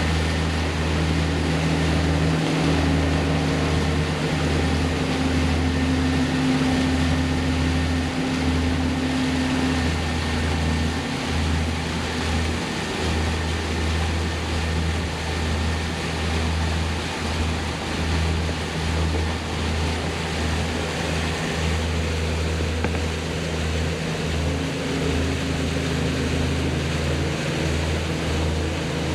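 A motorboat's engine running steadily with the boat under way, a low steady hum under the rush of water and wind.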